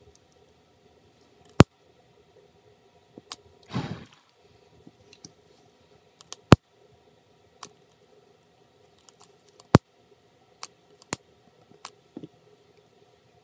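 Handling noise from gloved hands working a fan's wire leads and connector: a scattering of sharp, irregular clicks and taps, with a brief rustle about four seconds in.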